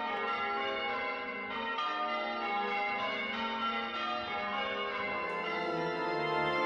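Church bells change ringing: several bells struck one after another, their tones ringing on and overlapping.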